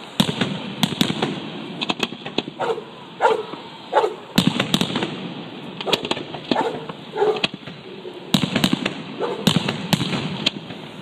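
Fireworks exploding in clusters of sharp bangs and crackles. Between the volleys a dog barks in short bursts, often two at a time.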